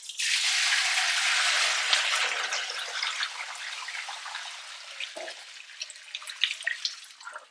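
Chicken bone broth being poured out of a tipped roasting pan in a steady stream. It starts suddenly, is loudest in the first couple of seconds, then slowly thins out into drips as the pan empties.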